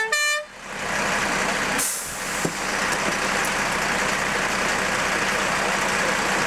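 Fire engine running close by: a steady, loud rushing engine noise that builds up in the first second and holds even. The very start has the tail of a short two-note pitched tone.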